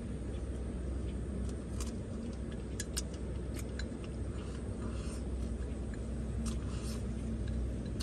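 A man eating from a bowl with chopsticks: light, scattered clicks of the chopsticks against the bowl and chewing, over a steady low rumble.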